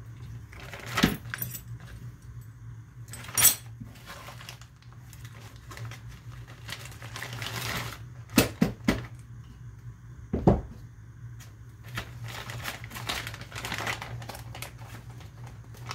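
Small steel rifle parts clinking as they are handled and dropped into a plastic zip-lock bag, with the bag crinkling between a handful of sharp clinks.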